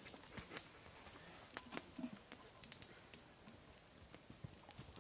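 Faint, irregular light clicks and knocks, a few to the second, over a quiet outdoor background.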